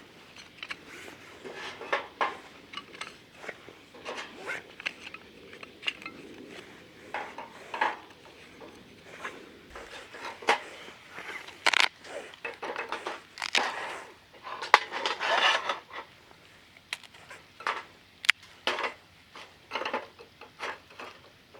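Metal camp cookware clinking and knocking as it is handled, in irregular clatters with a few short scrapes.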